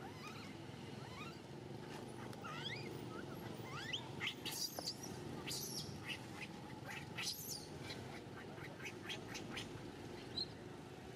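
A newborn monkey crying: many short, high squeaky calls that rise and fall in pitch, coming in irregular runs, over a steady low background noise.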